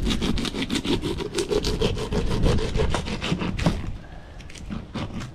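A knife sawing through a whole mutton snapper along its back, in quick back-and-forth strokes, several a second, through the scaled skin. The strokes stop a little over halfway through, and a few fainter ones follow near the end.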